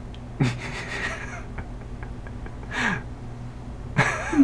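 A person chuckling: three short breathy sounds that fall in pitch, the last one loudest, over a steady low hum.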